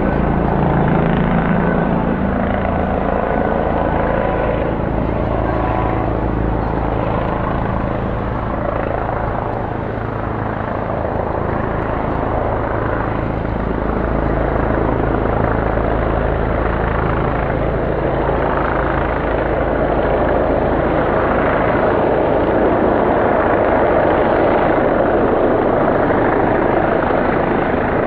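Police helicopter circling overhead, its rotor and engine running steadily; it fades a little about ten seconds in, then grows louder again.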